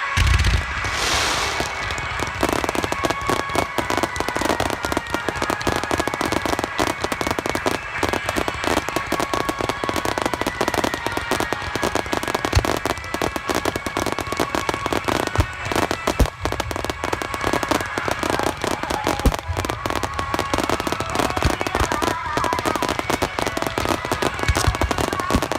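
Fireworks bursting at close range: a deep boom just after the start, then continuous dense crackling with scattered booms from further shell bursts.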